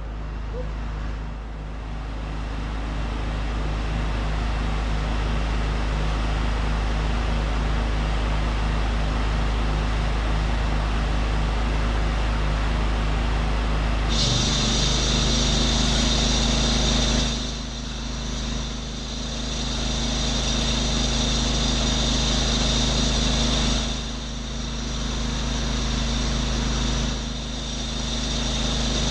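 Pressure washer engine running steadily; about halfway through the spray starts with a sudden loud hiss and the engine note changes as it takes the load, with three short breaks in the spray near the end.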